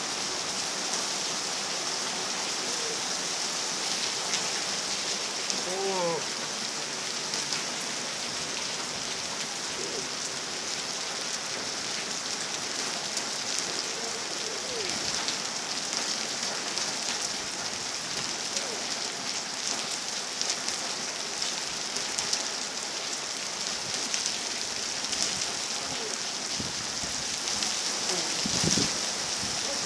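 Steady rain falling, an even hiss flecked with the ticks of individual drops. A few brief faint voice-like sounds rise through it now and then.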